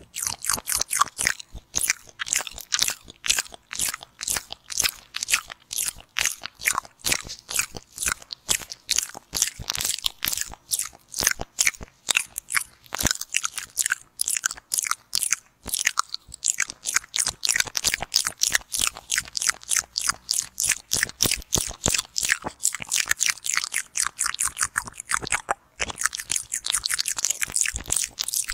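Close-up ASMR mouth sounds: rapid wet sucking and clicking of the lips and tongue right at the microphone, about four or five a second, with a brief pause near the end.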